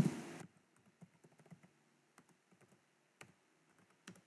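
Faint typing on a computer keyboard: a handful of separate keystrokes, irregularly spaced about a second apart.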